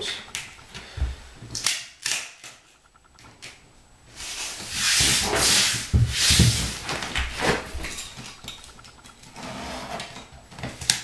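Handling noise of peel-and-stick edge strips being laid and pressed onto the subfloor by hand: scattered taps and scuffs, with a louder rustling scrape about four to seven seconds in.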